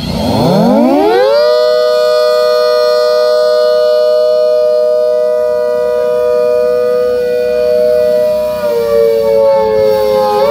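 Miniature ACA Hurricane siren sounding a two-note chord: it rises in pitch over about a second and a half to a steady wail, sags a little lower near the end, then climbs back up.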